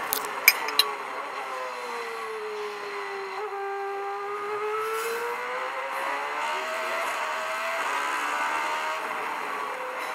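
Porsche RS Spyder LMP2's V8 heard from the cockpit, its revs sinking slowly for a few seconds, then climbing again as the car accelerates out of a corner. A few sharp clicks in the first second.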